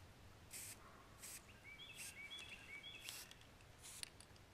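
Krylon aerosol spray-paint can giving about four short, faint hisses as paint is sprayed in quick bursts. A small bird chirps a quick run of short notes in the middle.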